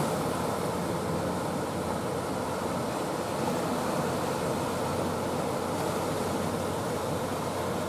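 Steady rushing noise of choppy sea water and waves, with wind buffeting the microphone.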